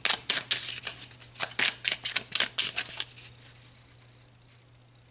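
A deck of oracle cards shuffled by hand, a quick run of crisp card snaps and slaps for about three seconds that then stops. A faint steady low hum runs underneath.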